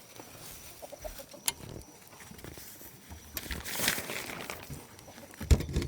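Handling noises: scattered light clicks and rustling, then a run of louder knocks and thumps near the end.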